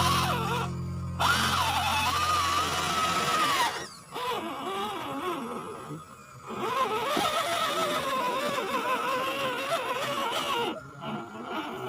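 Whine of a 1:10 scale RC crawler's electric motor and gearbox, rising and falling in pitch with the throttle and dropping away briefly a few times.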